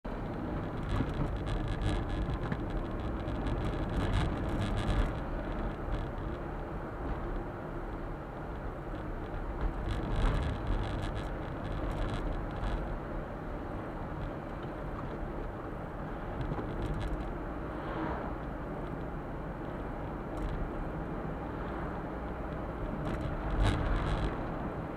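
Suzuki Super Carry kei truck driving, heard from inside the cab: steady engine and road noise, with a few short bouts of rattling and knocking.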